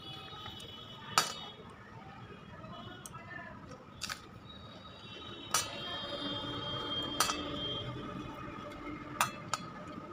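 Dishes clinking while rice is eaten by hand from a plate: about six sharp clinks, each with a short ring, spaced a second or two apart.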